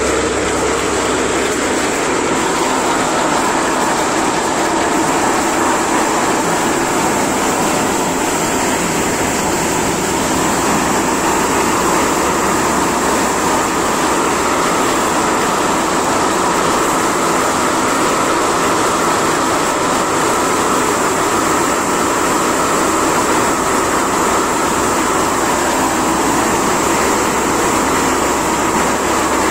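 Maize thresher running steadily while shelling corn, a loud unbroken machine noise with a steady high whine on top.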